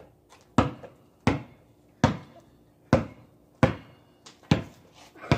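A basketball dribbled on a paved driveway: about seven bounces, a little under a second apart, each a sharp slap that fades quickly.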